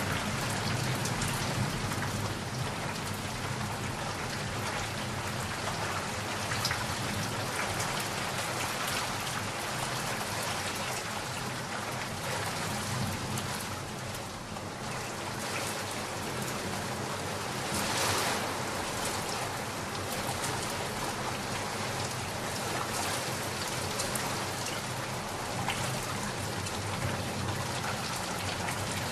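Steady rain falling, with a low rumble of thunder underneath. A brief louder swell of rain comes about two-thirds of the way through.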